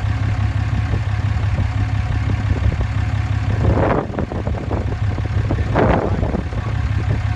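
Ram 2500's Cummins 6.7-litre inline-six turbodiesel idling steadily, with two brief rushes of noise about four and six seconds in.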